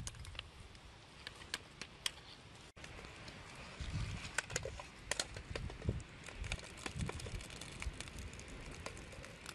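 Scattered sharp snaps and crackles of dry wood: a blade cutting thin branches from a shrub, then a wood campfire crackling, with a few low bumps as things are set on it.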